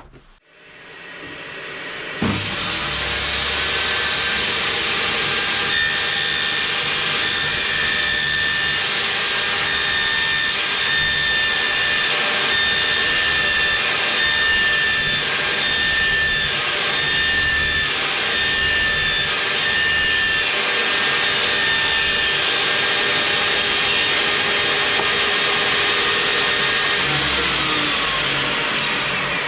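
Electric power tool spinning up with a rising whine, running and cutting steadily for about 25 seconds, then winding down with a falling whine near the end.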